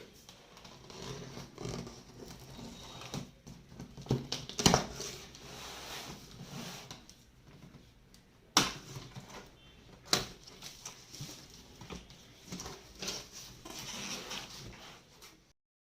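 Handling of PC parts and their packaging: irregular rustling with a few sharp knocks, the loudest about four and a half seconds in and two more near eight and a half and ten seconds.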